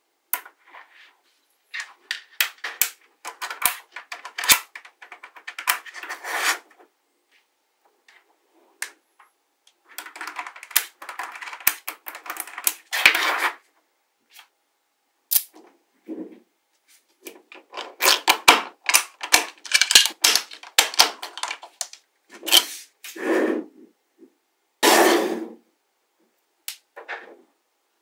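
Small neodymium magnetic balls clicking and rattling as they snap together into rows and are pressed into a flat slab. The clicks come in bursts of quick, sharp snaps with short silent gaps between them, and a few longer, denser rattles.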